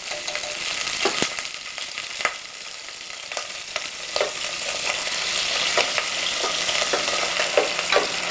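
Grated onion sizzling in hot oil in a pot, stirred with a wooden spoon, with scattered short knocks of the spoon against the pot. The sizzle grows a little louder about halfway through.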